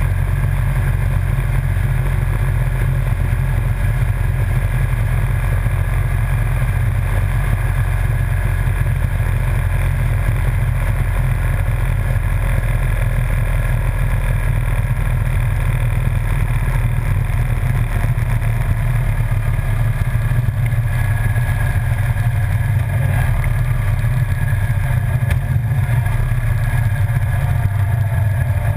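Motorcycle cruising at steady road speed: engine running and wind rushing over a fender-mounted action camera, making a constant, heavy low rumble with no change in throttle.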